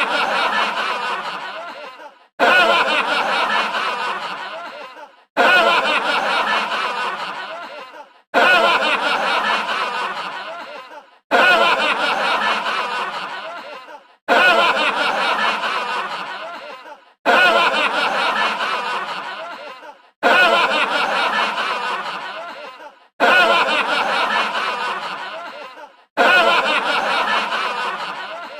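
Laughter sound effect, a short 'hahaha' laugh looped over and over: the same clip of about three seconds starts loud, fades away, and begins again abruptly.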